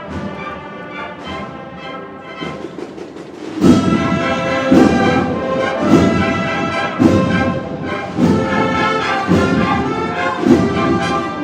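Brass band of a Holy Week cofradía playing a processional march. It is softer at first, then about three and a half seconds in the full band comes in louder, with a heavy beat roughly once a second.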